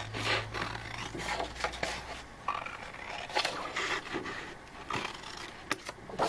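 Scissors snipping through a sheet of patterned scrapbook paper in a series of irregular cuts, then the stiff sheet rustling as it is lifted and moved.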